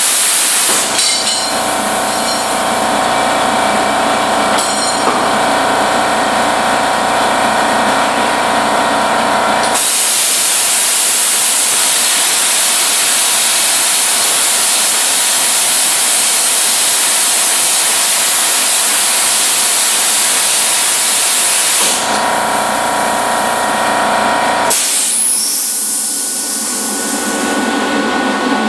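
Plasma cutter cutting steel plate: a loud, steady hiss of cutting air. The arc's buzzing hum joins it for about the first ten seconds and again briefly past the twenty-second mark, with the air hiss alone in between.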